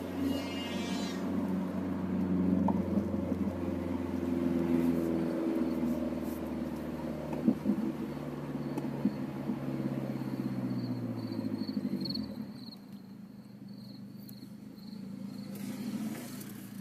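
Nissan 200SX S13's turbocharged CA18DET engine running through a 3-inch Japspeed exhaust with a steady low note. About ten seconds in the note falls in pitch and then goes quieter, picking up again near the end.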